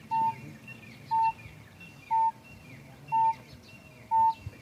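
Yo-Yo test app countdown beeps from a Bluetooth speaker: a short high beep once a second, five times, counting down to the start signal. Birds chirp faintly in the background.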